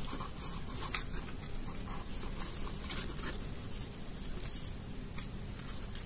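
Fingers picking old sphagnum-based potting substrate out of an orchid's root mass: irregular dry crackling and rustling as roots and clumps of substrate are pulled apart.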